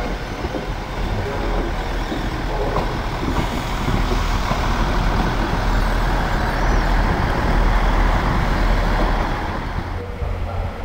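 East Coast InterCity 225 express, with an electric locomotive and Mark 4 coaches, running through the station at speed without stopping. The rush of wheels and air builds, peaks, then falls away about ten seconds in.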